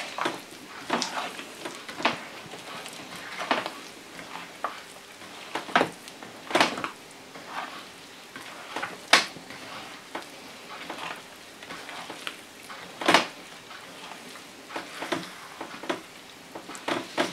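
A hand mixing flour into soft yeast dough in a large enamel bowl: an irregular crackly stirring noise with scattered sharp ticks and a few louder knocks.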